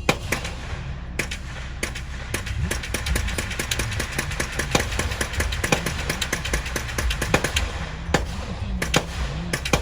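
Gunfire at a shooting range: many shots in quick, irregular succession, some loud and sharp, others fainter, overlapping into a rattle in the middle.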